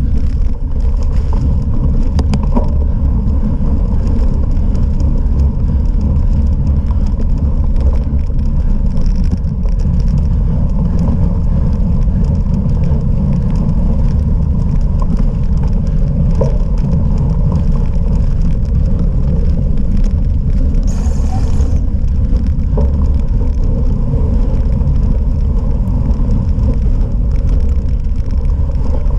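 Cyclocross bike being ridden over rough off-road ground: a steady, loud low rumble of tyres and wind on the microphone, with frequent small rattles and knocks from the bike.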